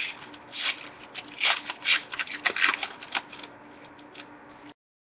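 Foil trading-card pack wrapper crinkling and tearing as it is opened by hand, in a run of short rustles. The sound cuts out abruptly near the end.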